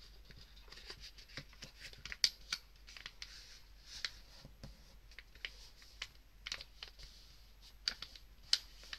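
Sheet of printer paper being folded by hand into a paper airplane: light rustling with irregular small crisp ticks and crackles as fingers press the folded layers flat and run along the creases, the sharpest snaps about two seconds in and near the end.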